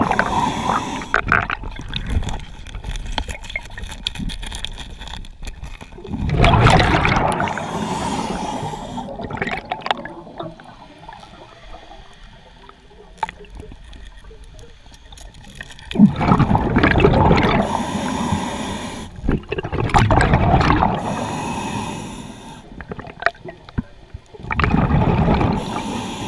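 Scuba diver breathing underwater: exhaled bubbles from the regulator gurgling past the camera in five loud bursts a few seconds apart, quieter in between.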